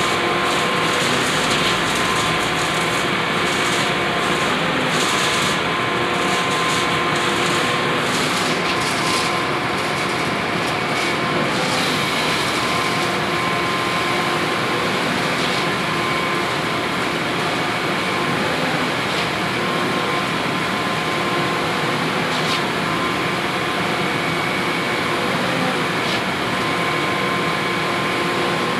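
A heavy engine running steadily on a construction site: a constant loud drone with a faint hum that comes and goes.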